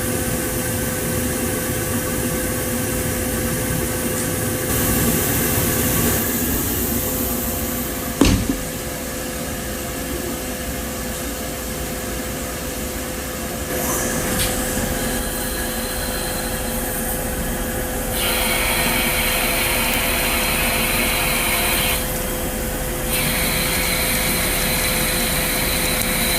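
CNC lathe and its oil mist collector fan running: a steady machine hum with one constant tone, and stretches of hiss that start and stop several times. A single sharp knock about eight seconds in.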